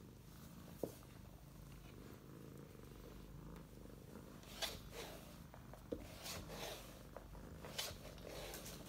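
Sphynx cat purring, a faint steady rumble, with a few short rustles and scuffs of movement about halfway through and near the end.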